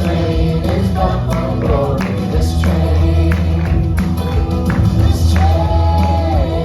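Upbeat gospel-style song with group singing over a steady bass line and regular percussion.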